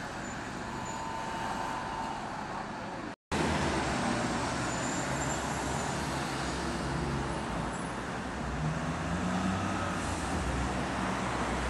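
Road traffic: vehicles passing and engines running, with a steady low hum. The sound drops out completely for a moment about three seconds in, then comes back louder.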